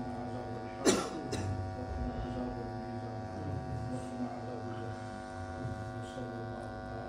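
Steady electrical hum in a crowded hall, with low indistinct voices of the congregation. A sharp knock about a second in, followed by a smaller one half a second later.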